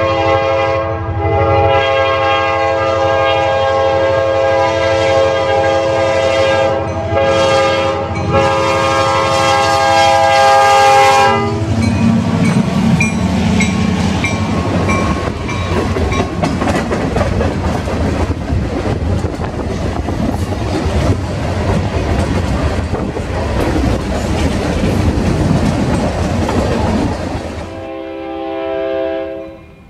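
Diesel locomotive's air horn blowing a loud multi-note chord with a few short breaks, signalling for the grade crossing; about eleven seconds in the horn stops and the locomotive's engine and the freight cars, tank cars among them, rush past with wheels clattering on the rails. Near the end the sound drops off sharply.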